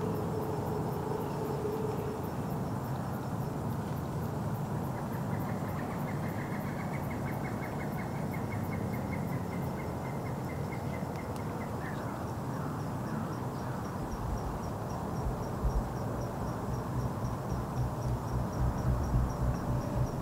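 Insects chirping in woodland, steady repeated high chirps, with a faster trill in the middle. About three quarters of the way in, a low pulsing beat comes in and grows louder.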